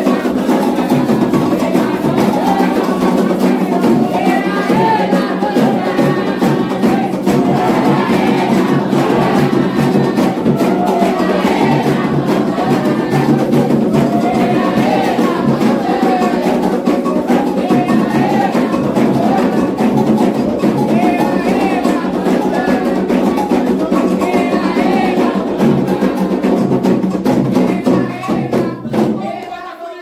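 Candomblé ritual music: atabaque hand drums with group singing of the chants to the orixás. The music dies down near the end.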